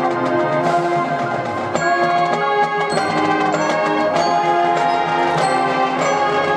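High school marching band playing its field show: held wind chords that change every second or so, with percussion.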